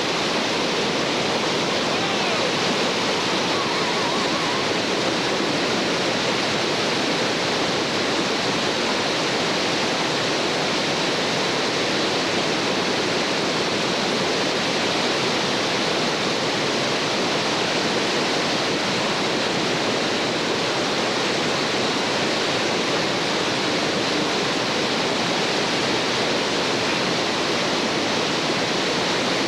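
Whitewater rapids on a creek running about 1,820 cfs: a steady, unbroken rush of churning water.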